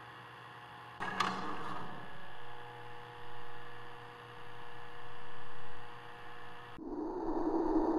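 Steady electrical hum of VHS tape playback on a TV, with a sharp click about a second in. Uneven noise then swells and fades over the hum, and near the end a louder noise builds.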